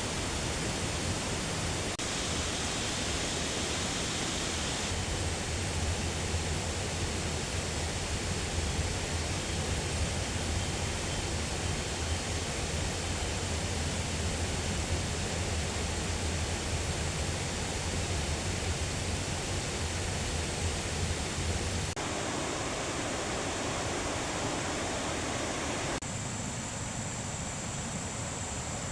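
Steady rushing noise with no distinct events. Its character changes abruptly a few times, a few seconds in, about three-quarters through and near the end.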